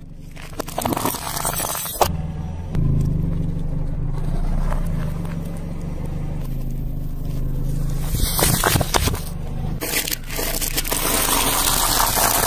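A car tyre rolls slowly over brittle food, crushing it. Dry pasta nests and stacked macarons crack and crunch under the tread, loudest in two spells of dense crackling over the second half, with a sharp snap about two seconds in and a steady low car hum underneath.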